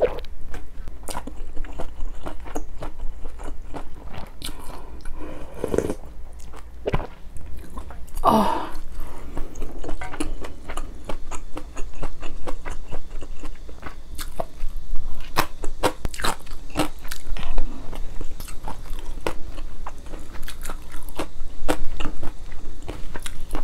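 Close-miked chewing and biting of a mouthful of maratang: wet, crunchy mouth sounds with many small, sharp clicks.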